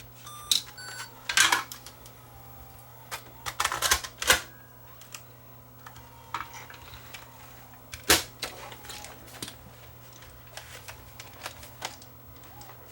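Scattered plastic clicks and clacks from handling a video tape cassette and the camcorder, with the loudest knocks about a second and a half, four, and eight seconds in, over a faint steady hum.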